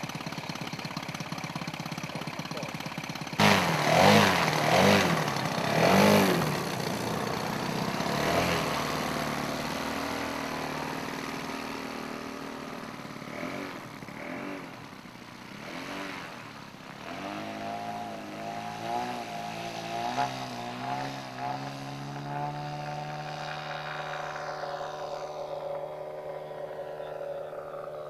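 Half-scale RC biplane's 3W-106 two-stroke gasoline engine idling, then revved hard three times a few seconds in. It settles to a steady run and later holds a steady high power through the takeoff and climb, its pitch easing slightly down near the end as the plane flies away.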